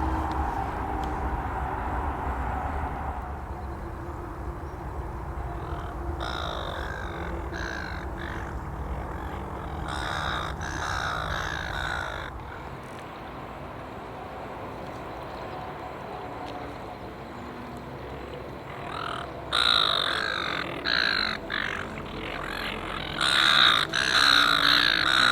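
A flock of silver gulls squawking harshly, several birds at once, in repeated bouts that grow loudest near the end: the gulls are going mental, agitated and calling over one another.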